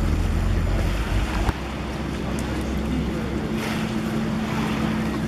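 Wind noise on the microphone over sea water, with heavy low buffeting that eases about a second and a half in; a steady low hum runs under it in the later part.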